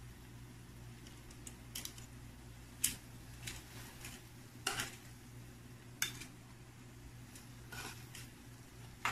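Stainless steel tongs clicking and tapping against a nonstick frying pan and a plate as shrimp are picked up: irregular sharp clicks, the loudest about three seconds in, over a low steady hum.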